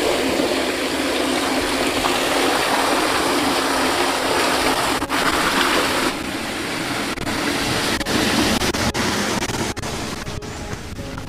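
Steady rush of water that eases about six seconds in, with a few short sharp knocks in the second half.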